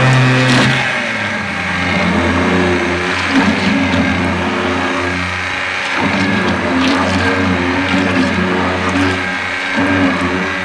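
Large 1-horsepower commercial immersion blender running in a tank of liquid soap, its motor whirring steadily as it mixes the batch toward a thick paste. The pitch shifts a little about a second in and again around six seconds in as the blender is worked through the mix.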